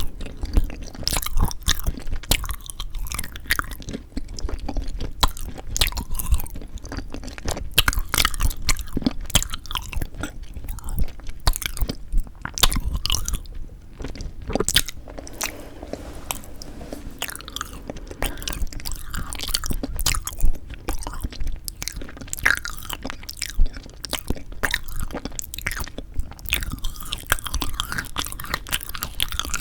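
Close-miked chewing and biting of frozen yanggaeng (sweet red bean jelly): a dense, irregular run of sharp crunchy clicks.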